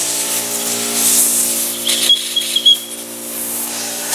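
Air blow gun hissing steadily as it blows out an engine case, over a steady low hum, with a few short high squeaks about two seconds in.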